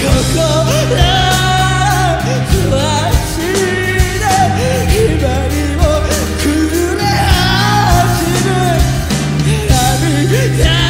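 A Japanese rock band playing live: a male voice sings a wavering melody over held bass notes, guitar and drums with crashing cymbals.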